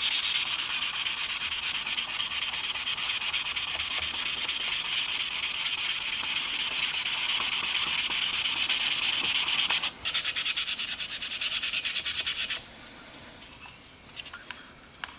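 Fine wet sandpaper rubbed in quick back-and-forth strokes over a brass Zippo lighter shell. The strokes break off about ten seconds in, resume more softly for a couple of seconds, then stop.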